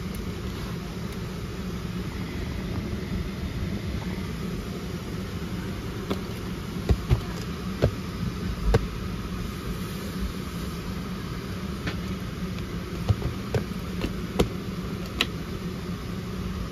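Steady hum of the Boeing 737-700's cabin air, with a scattered run of clicks and knocks through the middle as the seatback tray table is unlatched, lowered and later folded back up and latched.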